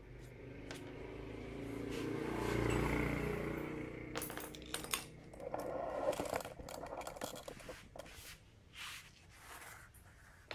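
Sharp metallic clinks and scrapes as a scooter's front axle, spacers and wheel with its brake disc are pulled out of the fork and the wheel is set down on the floor. Before them, a low hum swells and fades over the first few seconds.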